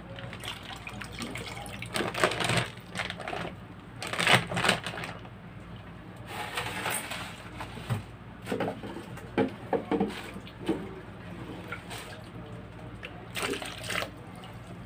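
Muddy water being scooped up with a clear plastic container and poured, splashing and sloshing in irregular bursts.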